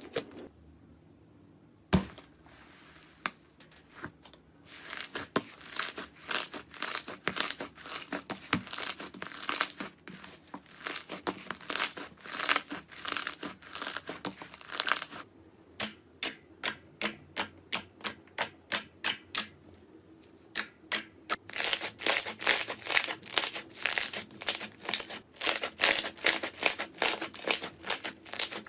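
Slime being squeezed and poked by hand, making a run of sharp crackles and pops. After a quiet gap near the start they come thick and fast, and in the second half often in quick, regular series of several pops a second.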